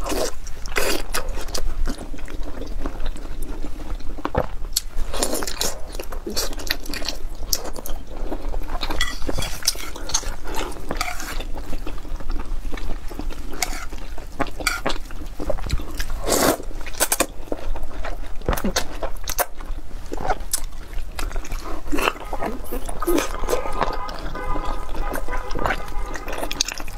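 Close-miked eating of braised pork and glass noodles: wet chewing, sucking and lip smacks, with irregular sticky clicks throughout.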